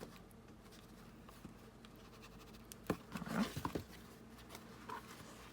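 Quiet dabbing and handling of an ink dauber on paper, with a sharp click about three seconds in and a short burst of rustling right after.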